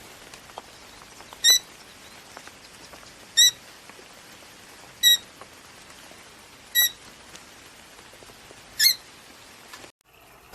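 Rosy-faced lovebird giving five short, sharp, high-pitched chirps, one about every two seconds.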